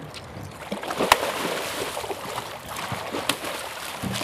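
A hooked Chinook salmon splashing and thrashing at the surface beside the boat as it is scooped into a landing net. Two sharp knocks come through the splashing, one about a second in and one about two seconds later.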